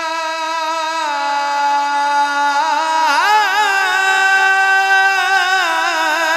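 Male naat reciter singing a long wordless melodic passage: a held note that steps down about a second in, then wavering, ornamented runs.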